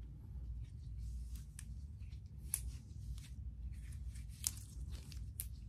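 Hands handling a thin black fabric glove and rubbing together, a soft rustle with a few sharp clicks, the loudest a little before the end, over a steady low hum.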